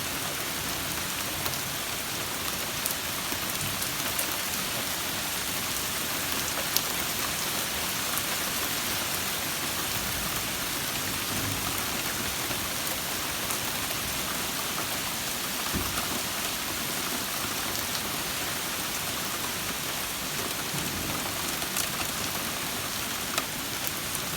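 Steady summer rain falling, an even hiss with a few sharper drop ticks now and then.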